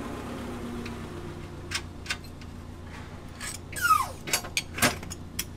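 Sharp metallic clicks and clinks of steel nuts, bolts and tools handled against a galvanised steel tow bar rail while bolts are fitted by hand, with a short falling squeak about four seconds in.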